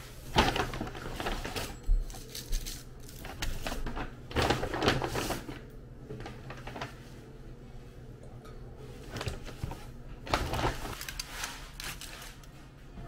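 Paper takeout bag and food wrappers rustling and crinkling as they are handled and opened, in several separate bursts, the longest about four to five seconds in and another about ten seconds in.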